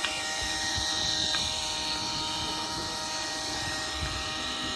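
Steady whine and rush of a radio-controlled model jet's turbine engine at a distance. The hiss swells and fades slightly over the few seconds.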